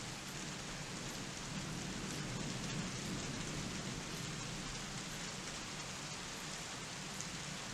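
Steady rain from a thunderstorm falling with an even hiss.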